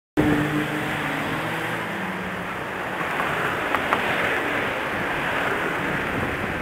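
Outdoor street ambience: a steady rushing noise, likely passing road traffic, with a faint engine hum in the first couple of seconds and a couple of faint clicks about four seconds in.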